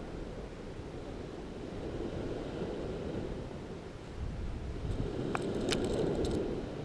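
Steady rush of wind and surf, with a short run of light, sharp clicks about five seconds in.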